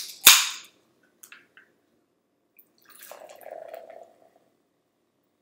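A can of LaCroix sparkling water cracked open with a sharp snap and a short fizzing hiss, followed by a few faint clicks. About three seconds in, the sparkling water is poured into a plastic cup for just over a second.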